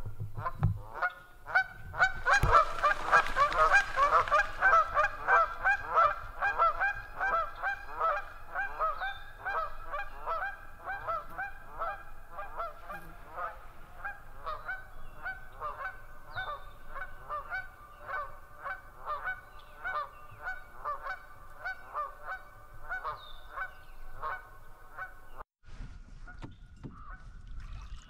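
Canada geese honking over and over in a rapid run of calls, two or three a second, loudest in the first few seconds and cutting off near the end.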